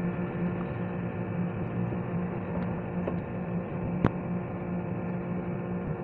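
Steady low hum, with one sharp click about four seconds in.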